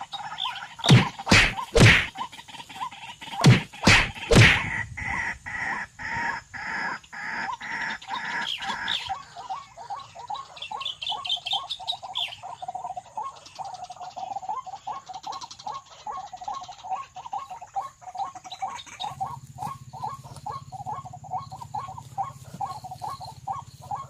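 White-breasted waterhen (ruak-ruak) calls: several loud, harsh calls in the first five seconds, then a long, even run of quick repeated notes.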